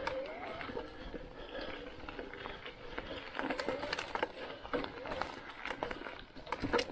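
Canyon Spectral:ON e-mountain bike rolling over dry leaf litter: tyres crunching through the leaves, with frequent sharp clicks and snaps of twigs, under a faint steady hum.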